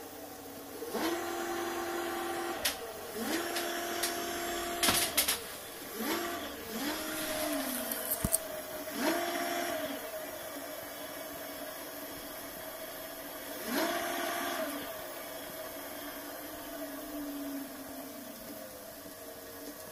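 Small e-bike hub motor whining as it spins up under the thumb throttle, holding speed for a second or so and winding back down, several times over. A few sharp clicks fall between the runs.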